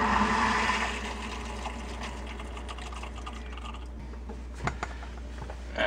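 Water rushing through the reverse osmosis system's tubing and into its storage tank as the supply is turned back on and the system pressurizes: a steady hiss, strongest at first and easing off, with a few clicks near the end.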